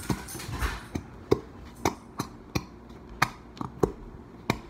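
Plastic squeeze bottle of glow-in-the-dark glue being squeezed and pumped upside down over a plastic tub: a run of sharp plastic clicks and knocks, about two a second, unevenly spaced.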